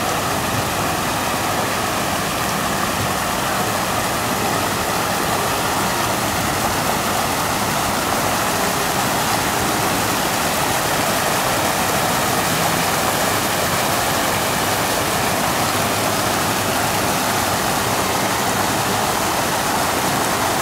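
Fountain jets arcing from the sculpture's elephant trunks and splashing into the basin: a steady rush of falling water.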